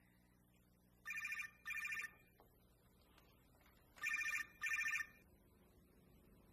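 Mobile phone ringing with an electronic trill: two pairs of short rings, the pairs about three seconds apart.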